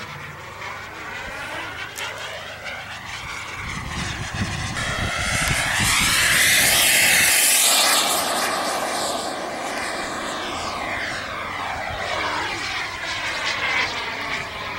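Kingtech K60 model turbine engine of an HSD Super Viper RC jet flying past. The jet noise builds to its loudest about six to eight seconds in as the jet passes, then fades away.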